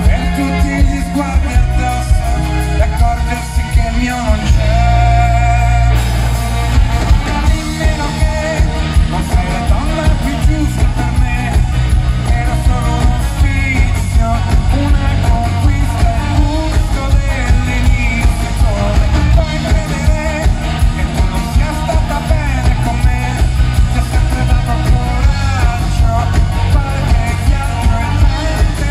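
Live rock band playing: a man sings lead over electric bass guitar and drums, with a steady beat and heavy bass.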